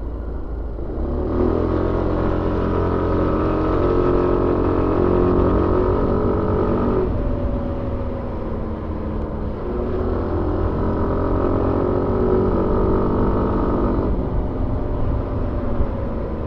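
Suzuki Avenis 125 scooter's engine heard on board while riding. The throttle opens about a second in and the engine note rises and holds for several seconds, then drops back about halfway through. It opens and rises again, then eases off near the end.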